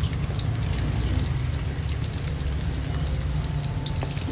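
Breaded squid rings deep-frying in hot oil: a steady sizzle with fine, scattered crackling, over a low steady rumble.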